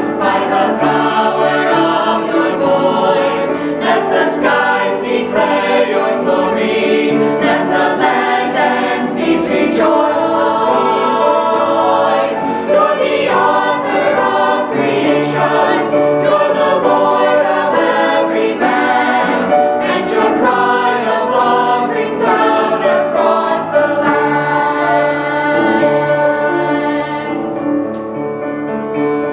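A mixed choir of young male and female voices singing a hymn together, the singing quieting near the end.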